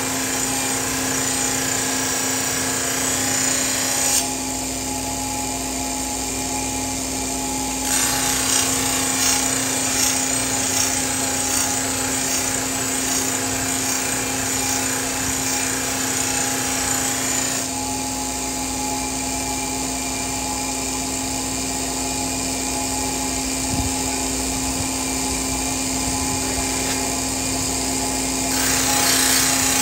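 Belt-driven grinding wheel running with a steady hum while the edge of a leaf-spring steel cleaver is pressed against it, giving a high hissing grind. The grinding lasts about four seconds, stops for about four, runs again for about ten, pauses for about ten more while only the wheel hums, and starts again near the end.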